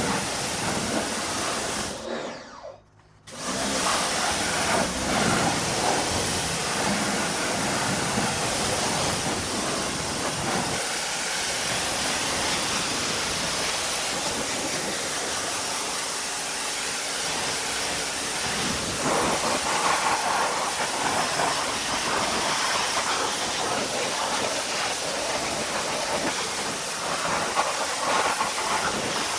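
Pressure-washer spray hitting a car wheel and tire: a steady, loud hiss of water, with a brief break about two to three seconds in where the clip cuts.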